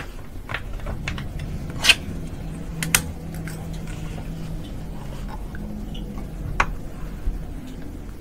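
Small hard clicks of glass microscope slides being handled and set on the microscope stage while the slide is changed, three or four sharp ones, the loudest about two seconds in, over a low steady hum.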